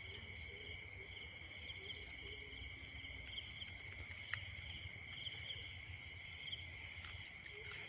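Steady high-pitched chorus of insects, such as crickets, with a few faint clicks in between.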